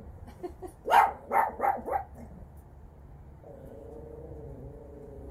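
Six-week-old puppies barking, four quick yips in a row about a second in. Near the end, a quieter steady low drone.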